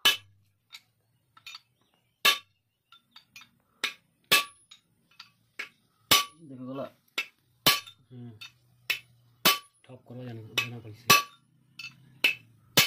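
Hammer blows on a steel drift rod held against a ball bearing's outer race, driving the bearing into the hub of a Kubota harvester's cast-iron tension pulley. There are about a dozen sharp, ringing metallic strikes, roughly a second apart.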